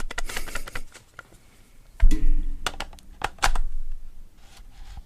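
Clicks and knocks of an old lens being handled and fitted onto a Canon EOS 800D DSLR body, with a heavier thump about two seconds in.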